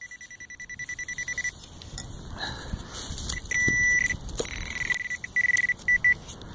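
Metal detector signalling a buried target with a single high electronic tone: rapid pulsing beeps for about a second and a half, then several longer beeps as it is swept over a dug plug of frozen soil.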